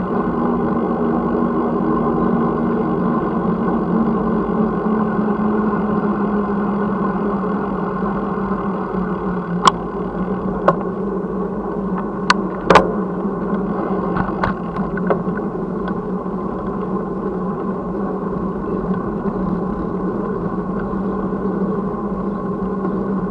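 Steady rushing noise of riding, picked up by an action camera mounted on a moving bicycle. A handful of sharp clicks and rattles come between about ten and fifteen seconds in, as the bike and camera mount jolt over the rough pavement.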